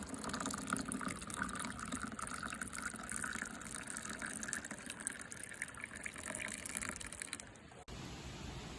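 Water running and gushing, a splashy rush that breaks off abruptly near the end into a steady hiss.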